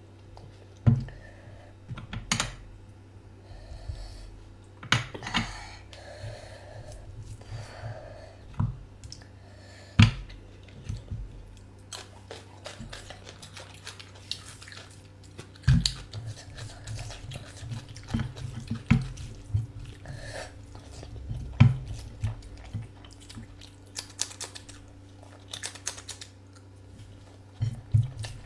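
Close-up chewing and wet mouth sounds of someone eating a curry meal, with scattered sharp clicks and taps, a few of them loud, over a low steady hum.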